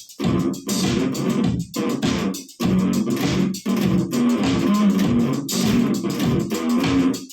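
Electric bass played through a Zoom GM-200 multi-effects unit: a rhythmic funk line of short, punchy notes broken by brief gaps.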